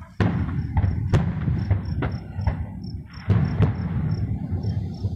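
Aerial fireworks going off: a string of sharp bangs and cracks over a continuous low rumble. A cricket chirps steadily behind them, with short high chirps at an even pace.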